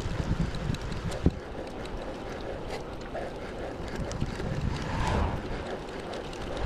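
Wind rushing over the microphone of a road bike ridden along a paved trail, with tyre noise on the asphalt and a few small clicks.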